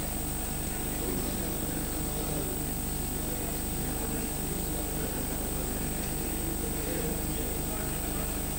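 Steady low drone with a constant electrical hum: the background noise of a large hall.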